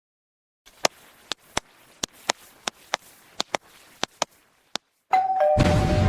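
About a dozen sharp, irregularly spaced taps, then a two-tone ding-dong doorbell chime, a higher note falling to a lower one. A loud rushing noise cuts in over the chime near the end.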